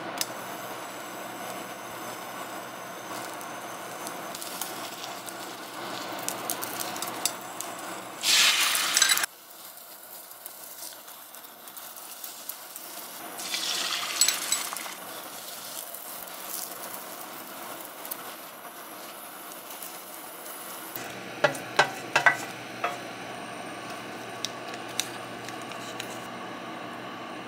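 Home-cooking handling sounds: beaten egg poured from a measuring cup into a dish, over a steady hiss. There is a short loud noise about eight seconds in, and a cluster of light clinks and taps a little after twenty seconds.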